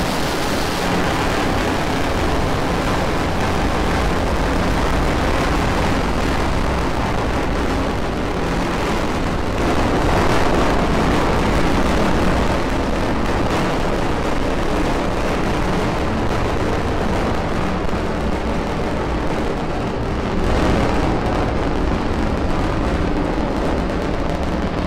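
Rocket engine noise from a Falcon 9's nine Merlin 1D first-stage engines climbing in the first seconds after liftoff: a loud, steady rumble that swells slightly about halfway through and again near the end.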